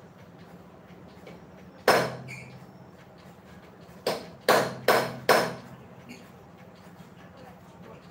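Hammer blows on steel in a welding workshop: one sharp, ringing clang about two seconds in, then four more in quick succession, roughly 0.4 s apart.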